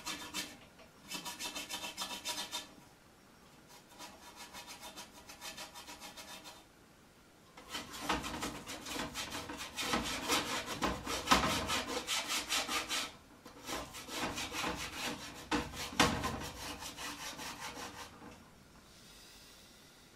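Paintbrush scrubbing rapidly back and forth in quick, even strokes. The strokes come in several runs with short pauses between them, and are loudest in the middle and later runs.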